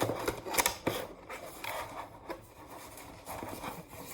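Cardboard and foam packaging being handled: sharp clicks and scrapes in the first second, then quieter scattered rustling.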